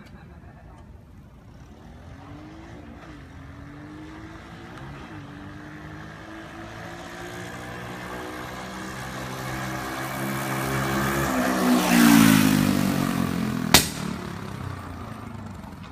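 Mini chopper's small single-cylinder engine running as the bike rides in, its revs climbing and dropping twice in the first few seconds. It grows steadily louder as it approaches, is loudest as it passes close by about twelve seconds in, then fades as it rides away. A single sharp click comes shortly after the pass.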